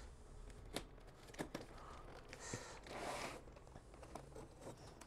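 Hands working at the taped flaps of a cardboard box: faint scraping and tearing of cardboard and packing tape, with a few light clicks and taps.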